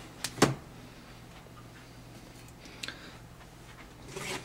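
Two quick, sharp clicks as the opened tablet keyboard dock and its freed ribbon cable are handled, then quiet handling with a single faint tick, and a brief rustle near the end as the dock is moved.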